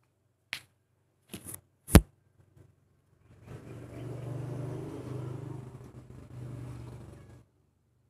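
A cat bumping and nosing a phone right at its microphone: a couple of light taps, then a sharp thump about two seconds in, followed by about four seconds of low rumbling, rustling noise from fur rubbing against it.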